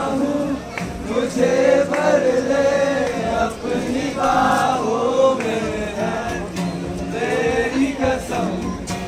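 Group of voices singing a song together in chorus to a strummed acoustic guitar.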